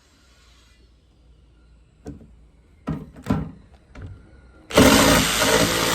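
A few separate knocks of something being handled, then a loud motor starts suddenly near the end and runs steadily.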